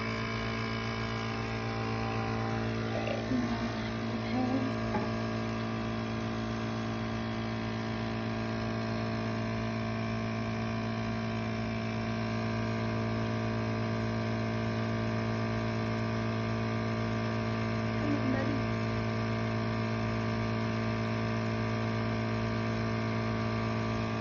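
Aquarium air pump (bubbler) running with a steady, even electric hum.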